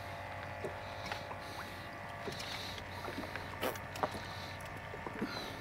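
Scattered light clicks and knocks from a freshly netted channel catfish and the landing net being handled on a boat while the hook is worked loose, over a steady low hum.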